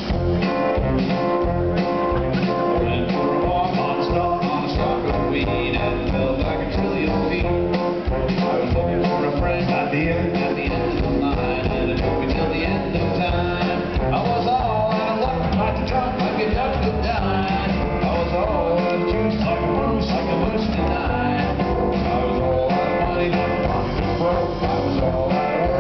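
A live rock band playing a song with a steady beat, recorded from the crowd at the show.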